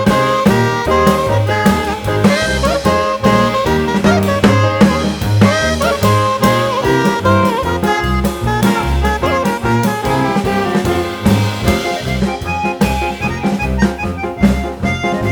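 Background music: an upbeat jazzy instrumental with horn-like melody lines over bass and drums, keeping a steady beat.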